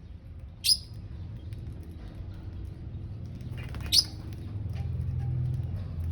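Lovebirds giving two short, shrill chirps about three seconds apart, over a low rumble that grows louder toward the end.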